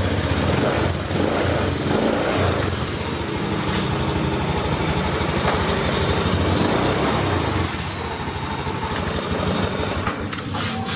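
2019 Honda Genio scooter's single-cylinder four-stroke engine running steadily on its first test run after a rebuild with a new piston, connecting rod, crankshaft bearings and valves. It runs a little quieter from about eight seconds in.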